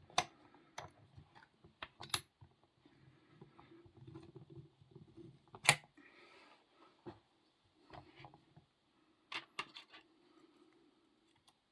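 Scattered small clicks and taps of a padlock and lock-picking tools being handled, with the sharpest click about five and a half seconds in and a quick pair near the end.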